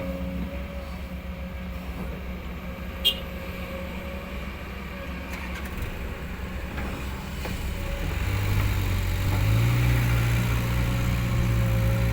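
Excavator's diesel engine running steadily, with a sharp click about three seconds in; from about eight seconds in the engine revs up and runs louder and higher.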